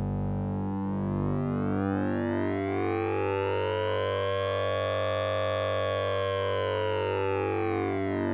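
Synthesizer drone with a sync and ring-modulation effect, made with the Orange Vocoder plug-in: a steady low hum under a bright, metallic tone that sweeps slowly up in pitch to a peak about halfway through, then back down near the end, like a slow siren.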